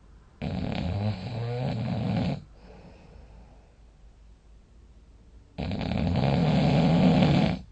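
A sleeping person snoring loudly: two long snores, each about two seconds, a few seconds apart.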